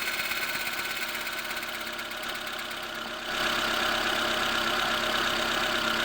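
Lada Granta idling cold with a whistle and hum from the INA clutch release bearing as the clutch is worked. The whistle grows louder about three seconds in. The owner takes it for a release bearing that is failing, and the bearing turned out to have a broken tab.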